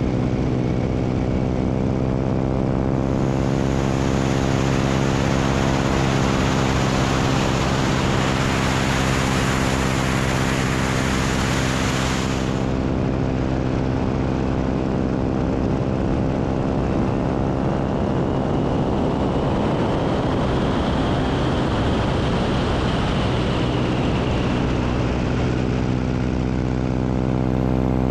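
Biplane engine and propeller running with a steady, many-toned drone in flight, heard from out on the wing. About three seconds in a loud rush of wind over the microphone swells up and cuts off sharply about twelve seconds in, leaving the engine drone.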